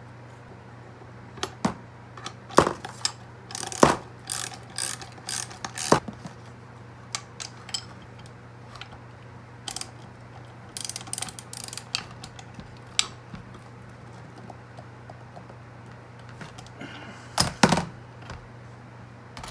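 Hand socket ratchet clicking in short, irregular runs while a brake pad pin is tightened into a rear brake caliper, with a few sharp metal clicks and knocks from handling the tool and part.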